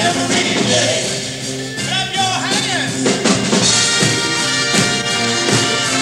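A mixed brass and mariachi band jamming a blues, with drums keeping the beat. About two seconds in a high line wavers up and down, and from about three and a half seconds the horns hold sustained chords.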